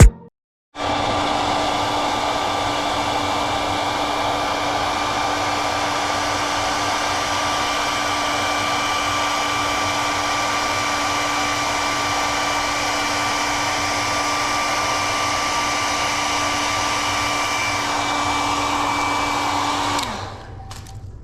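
Hand-held hot-air blower running steadily for about twenty seconds with an even whirring whine. It switches on just under a second in and cuts off near the end, its pitch dropping as it winds down.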